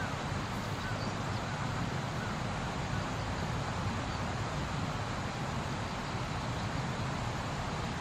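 Crested kingfishers giving a few faint, short calls over a steady low rumble of background noise.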